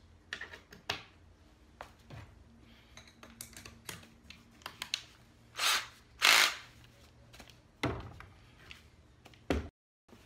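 Tools and wood being handled on a plywood worktop at a pocket-hole jig: scattered knocks and clicks, with two short, louder rushing noises about six seconds in.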